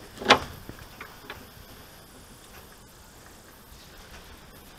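A single sharp clank of hand tools or metal parts being handled, about a third of a second in, followed by two fainter clicks; the rest is low background noise.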